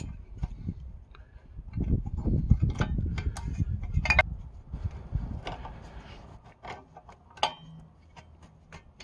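Scattered light metal clicks and taps as a parking brake shoe and its springs are handled and fitted against the backing plate, with a low rumble for a few seconds in the middle.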